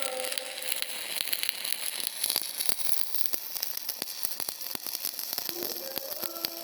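Electric arc welding: the arc crackles and sizzles steadily with dense, irregular sharp pops over a hiss.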